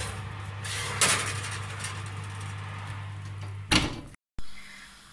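A metal loaf pan scraping as it is pushed onto an oven's wire rack, over a steady low hum, then the oven door shutting with a bang near the end.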